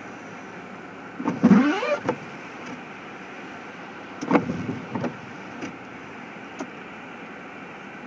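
Vehicles passing on a wet, slushy street, over a steady low hum. About a second in, one passes with its engine rising in pitch. A second vehicle passes about four seconds in, with small noises trailing after it.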